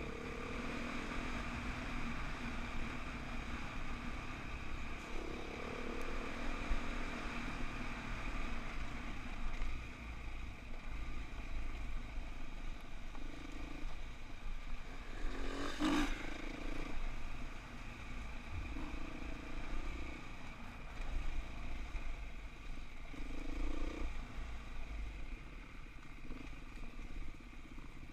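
Dirt bike engine running on the trail, its pitch rising and falling as the throttle is opened and closed, with rattle and clatter over the rough ground. A single sharp click comes a little past halfway.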